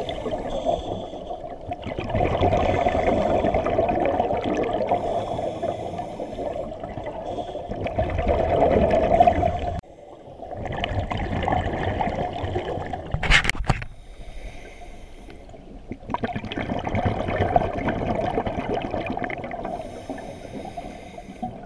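Scuba diver's regulator exhaling, bubbles rising in long bubbling surges a few seconds apart with quieter breaks for each inhale, heard underwater. A sharp click sounds about 13 seconds in.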